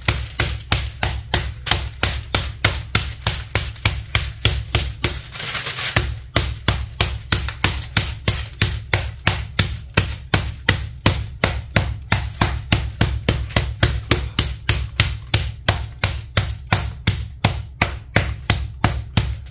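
Butterflied pork tenderloin under cling film being pounded flat, a steady run of knocks about three a second with a short break a little over five seconds in.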